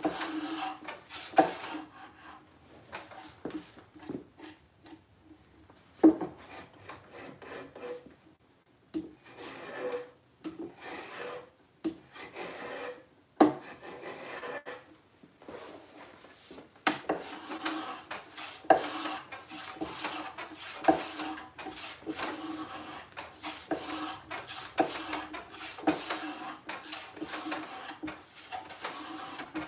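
Hand plane being pushed along the edge of a wooden drawer side, each stroke a rasping swish as it takes a shaving. The strokes come irregularly with pauses at first, then steadily about once a second in the second half. The side is being trimmed where it binds so the drawer fits its pocket.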